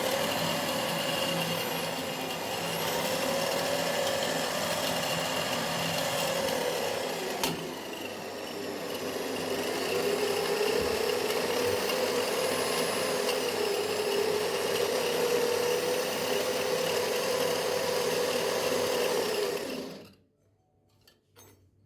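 Electric motor of a homemade belt sander, converted from a grinder, running steadily, its whine wavering and dipping in pitch. A sharp click comes about a third of the way in, and the motor cuts off abruptly near the end.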